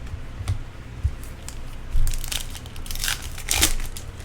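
Crinkling and rustling of baseball card packs and cards being handled, in a few short bursts, the loudest about two seconds and about three and a half seconds in, with small clicks between.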